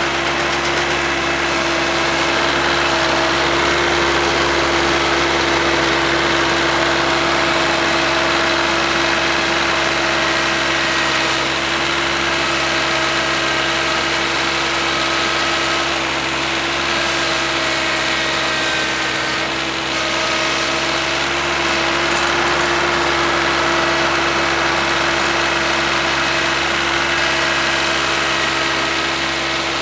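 Kioti CS2210 compact tractor's three-cylinder diesel running steadily at working speed, driving a 48-inch PTO snowblower that is throwing snow.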